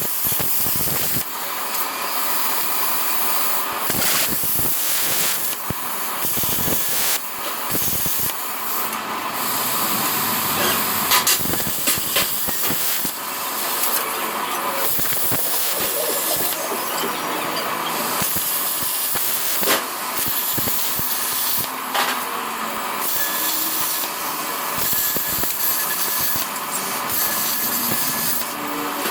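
Plasma cutter cutting steel: a steady, loud hiss with an uneven crackle, dipping briefly now and then.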